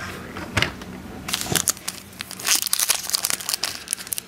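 Foil wrapper of a football trading-card pack crinkling and tearing as it is ripped open by hand. Two light knocks come in the first second and a half, then dense crackling fills the rest.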